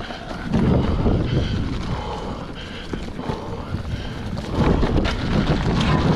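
Wind buffeting the microphone with the rolling noise of mountain bike tyres on a leaf-covered dirt trail during a ride, a continuous rumble that grows louder about four and a half seconds in.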